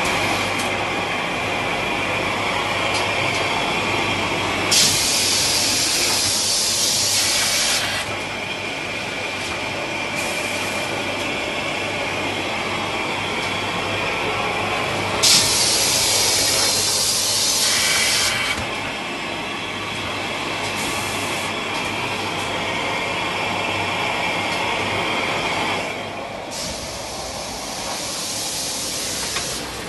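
XY-AI-398D automatic kitchen towel bundle packing machine running with a steady mechanical noise and a low hum. Three times, about every ten seconds, a loud hiss sets in sharply and lasts about three seconds.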